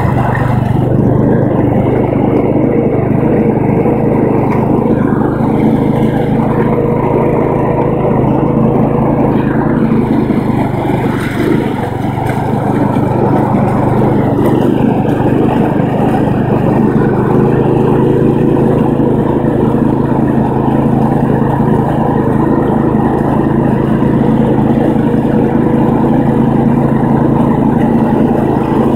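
Engine of an old open-bodied vehicle running steadily as it is driven slowly, holding an even speed with only a brief dip about twelve seconds in.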